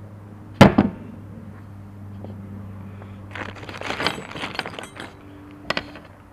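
Spark plug wire stripper snapping shut with a sharp clack, then, about three seconds in, a quick run of clicks and scraping as the insulation is stripped off the wire, and one more click near the end.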